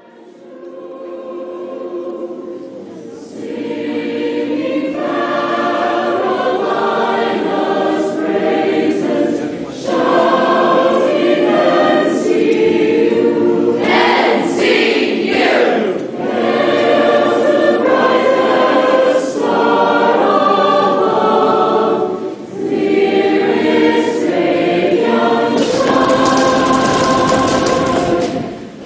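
Choral music: a choir singing sustained phrases, fading in over the first few seconds.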